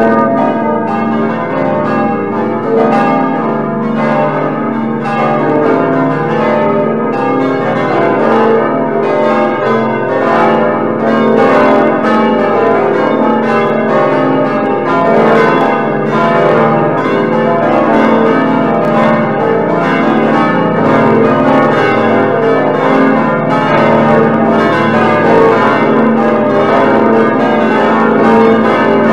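Full peal of many church bells swinging together, dense overlapping strokes at several pitches without pause, as played through a computer bell-ringing simulator.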